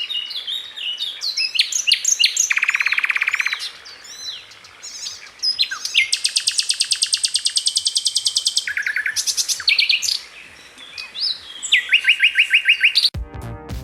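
Common nightingale singing: varied phrases of rapidly repeated notes, whistles and fast trills, with a long fast trill in the middle. Music starts suddenly near the end.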